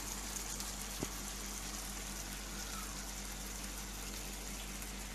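Thin strips of beef sizzling steadily in hot oil in a nonstick frying pan, with a faint click about a second in.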